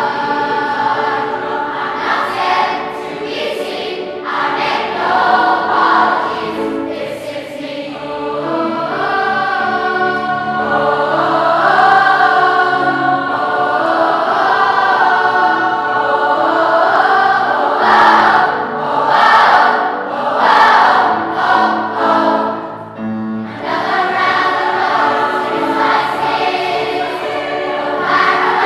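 Large choir of children and adults singing together.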